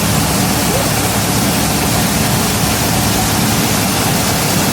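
Steady rushing machinery noise with a constant low hum from grain-handling equipment running at the grain bins.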